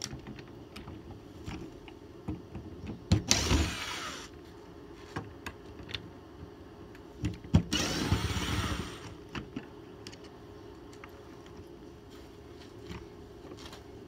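Power driver running screws into an RV door lock in two short runs, about three and eight seconds in, with clicks and knocks of the lock parts being handled between them.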